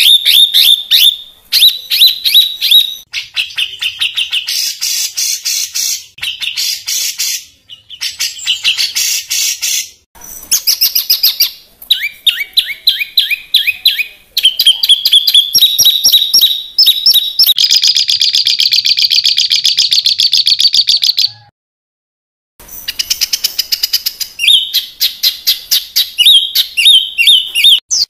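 A songbird singing loudly in a string of fast phrases: rapid repeated chips, rattling trills and harsh buzzy notes. This is a harsh rapid-fire song of the kind used to tutor cage songbirds. Short breaks fall between the phrases, with a pause of about a second near the end.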